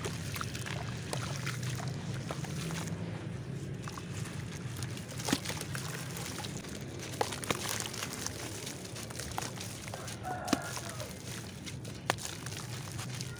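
Hands crumbling wet gritty clay blocks in a tub of water: water sloshing and splashing, with several sharp snaps and crunches as the chunks break apart, over a steady low background hum.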